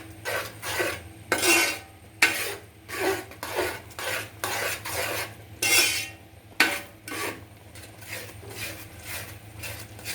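A spoon stirring and scraping a thick jackfruit-and-jaggery mixture around a cooking pot, in repeated strokes about one or two a second that grow fainter near the end. The steady stirring keeps the jaggery from catching and burning on the bottom.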